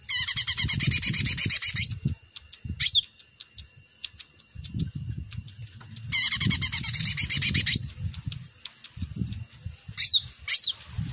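Blue-winged leafbird (cucak ranting) singing: a burst of rapid, dense song notes about two seconds long at the start and another about six seconds in. Short sweeping whistled calls fall between them and twice near the end, over a low background rumble.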